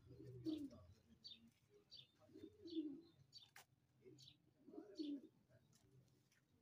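Domestic pigeons cooing: three low, rolling coos about two seconds apart. Between them come repeated short high chirps, and there is a single sharp click about halfway through.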